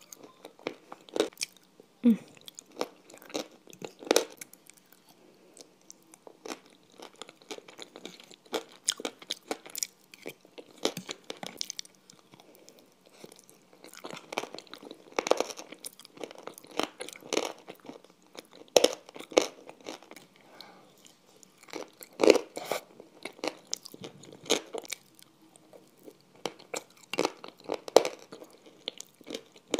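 Close-miked chewing and crunching of a creamy food with crunchy pieces, eaten by the spoonful: a steady run of irregular crunches and crackles, with sharper, louder bites every few seconds.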